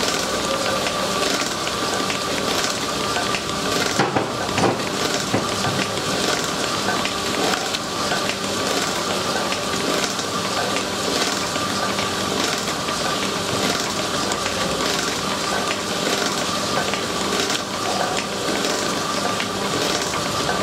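Electric paddle mixer churning thick grey cement mix in a steel drum: a steady crackling, swishing noise with a faint steady whine underneath. A couple of knocks come about four seconds in.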